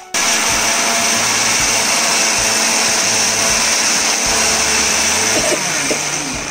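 Electric mixer grinder running at full speed in its small stainless-steel jar, grinding mint, coriander, ginger, garlic and green chillies into a fine paste. It starts suddenly and runs steadily, then is switched off and winds down near the end.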